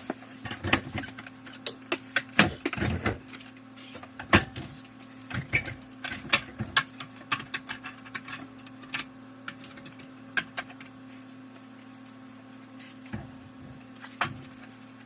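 Irregular knocks, clunks and scrapes from a heavy Grizzly mill/lathe combo being shifted and lowered by hand, busiest in the first half with a quieter stretch past the middle, over a steady hum.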